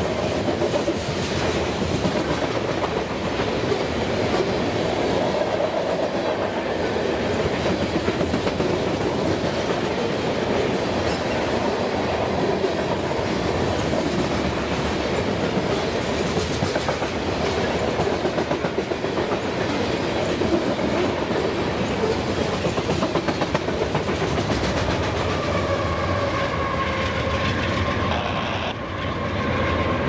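Freight train of covered hopper cars rolling past at close range, its steel wheels clattering rhythmically over the rail joints. A few faint steady high tones come in near the end.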